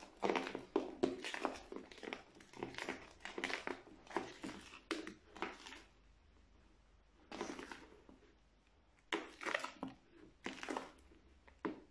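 Crunchy slime full of foam beads being stirred and folded with a wooden stick in a glass bowl: a quick run of short crunching, squishing strokes for about six seconds, then a pause and a few separate bursts near the end.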